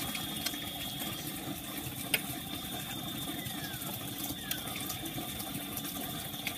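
Steady rushing noise like running water, with a thin, steady high whine over it. A single sharp click comes about two seconds in, and two short falling whistles come in the middle.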